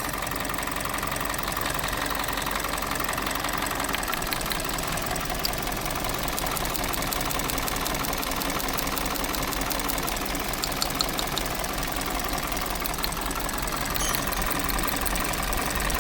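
Hyundai Tucson petrol engine running at idle with a rough, rapid ticking, a little louder near the end. The engine is very noisy and misfiring, which the mechanic puts down to a shorted ignition coil.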